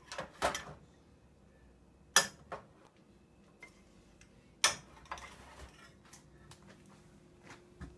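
A spoon clinking and knocking against a pot and a plate as rice is dished out: a few light clinks, with two sharper knocks about two seconds in and about halfway through.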